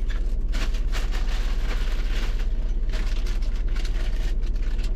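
Plastic GoPro accessories and their packaging being handled, with scattered rustles and light clicks over a steady low electrical hum.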